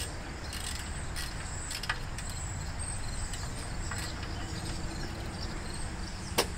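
Faint metal clicks as the loosened tank and cylinder shroud assembly of a Gravely walk-behind tractor is pushed and shifted by hand, with one sharp click near the end, over a steady low rumble.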